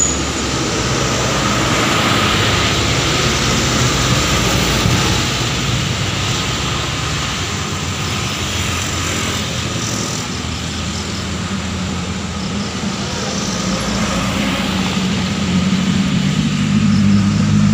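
Traffic labouring up a steep hill: a truck's engine, then a motorcycle and cars passing, with engine and tyre noise. Over the last few seconds one vehicle's engine drone grows louder.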